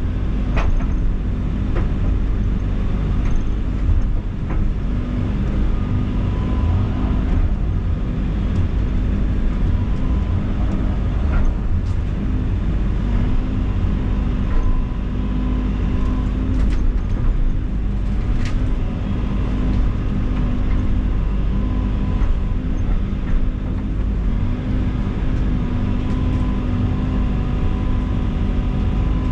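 Heavy machine's diesel engine running steadily under load, with a few sharp knocks or cracks here and there.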